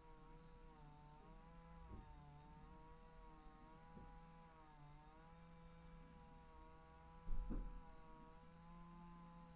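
Chainsaw idling faintly, its pitch wavering slightly, with a few knocks and a louder thud about seven seconds in.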